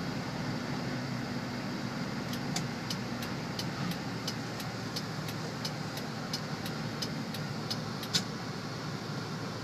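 Car running on the road heard from inside the cabin: steady engine and tyre noise. From about two seconds in until near the end, a run of short, even ticks about three a second, the last one loudest.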